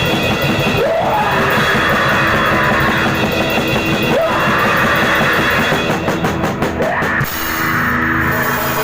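Hardcore punk / metal band playing loud distorted electric guitar over a drum kit, with a sliding guitar figure repeating about every second and a half. Near the end the drums hit a quick run of strokes and the guitars settle into a held, ringing chord.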